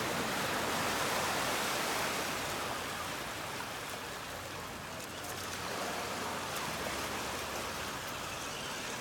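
Surf washing over a wet pebble beach: a steady rushing hiss, loudest in the first couple of seconds.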